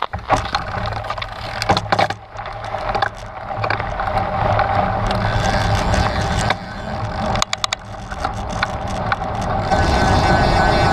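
Trek Stache 9 29+ mountain bike riding over a rough, rocky trail: a constant rolling rumble with many sharp knocks and rattles as it hits bumps, growing louder and steadier over the last few seconds.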